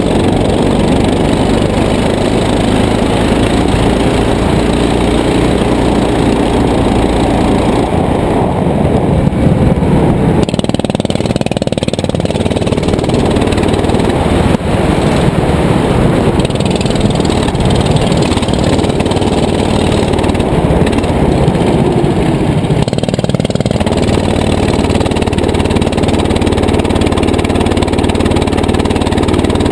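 Go-kart engine running at speed under the driver, its note rising and falling with the throttle through the corners.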